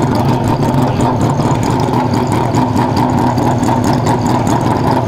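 An engine idling steadily, one even low running tone with no revving.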